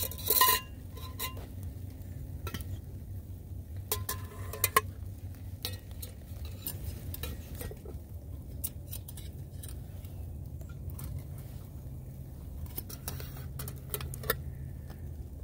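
Stainless steel camp pot, its lid and a coat-hanger wire clip clinking and scraping together as the lid is fitted and clipped on. Light metallic clicks come scattered throughout, with louder clusters at the start and about four seconds in.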